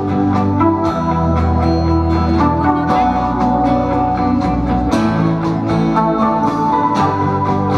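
Live pop-rock band playing a song through a PA: acoustic guitar, electric bass, drum kit and keyboard, with steady drum hits under held chords.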